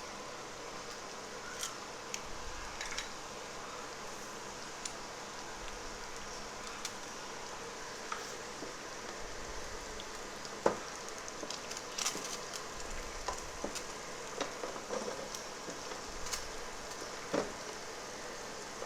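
Eggs and sliced pork sausage frying in hot oil in a pan: a steady sizzle with scattered pops and crackles, one sharper pop about ten seconds in.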